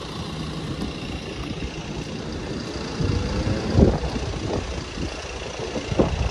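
City street traffic: motor vehicles running past with a steady low rumble, one engine rising in pitch about two to four seconds in. A couple of short thumps stand out, the loudest about four seconds in.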